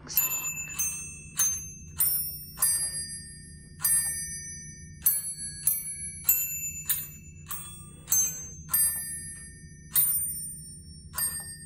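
A small glockenspiel playing a slow tune, one struck metal note at a time, about sixteen notes with each one ringing on briefly before the next.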